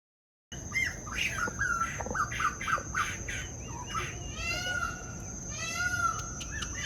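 Birds calling in an aviary: many short chirps and calls, some in quick repeated series, starting about half a second in over a steady high-pitched tone.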